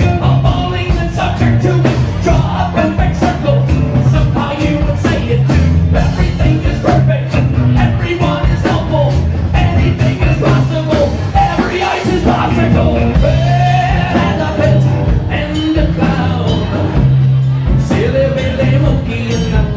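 Live band playing a song with a steady drum beat and bass line. A voice comes in briefly a couple of times.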